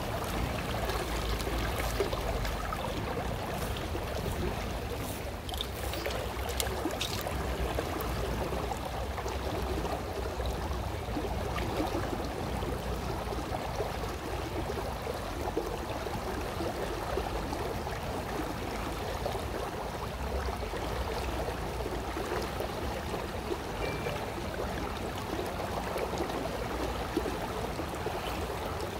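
River current flowing steadily, an even rush of water. A few faint ticks come about six seconds in.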